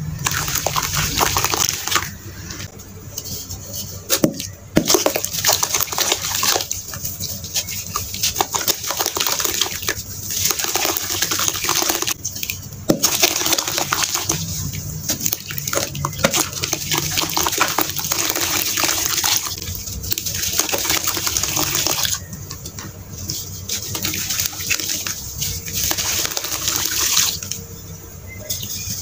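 Hands sloshing, squelching and splashing in a tub of wet, gritty sand slurry, picked up close by a microphone on the tub. It comes in stretches of a few seconds with short quieter pauses.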